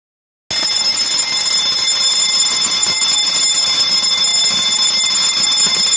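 Electric dome alarm bell ringing continuously, set off by a PIR motion sensor that has detected movement. It starts suddenly about half a second in and rings at one steady pitch with no breaks.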